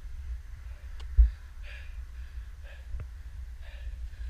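A man breathing hard in soft puffs about a second apart, catching his breath after landing a wingsuit BASE jump. Wind rumbles on the microphone, with a few light handling knocks.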